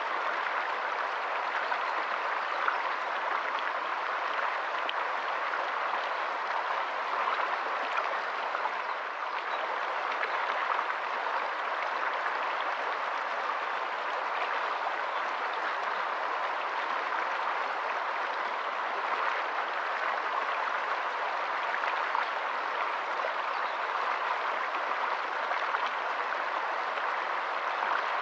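Stream water running over rocks: a steady, even rush and babble that stays the same throughout.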